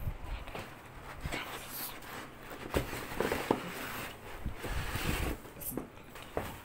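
Molded pulp cardboard insert scraping and sliding out of a cardboard box, with irregular rustles and sharp knocks of cardboard against cardboard.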